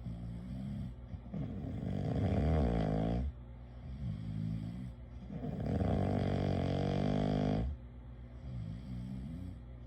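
A person snoring: two long, loud snores about four seconds apart, with softer, wavering breathing sounds between them.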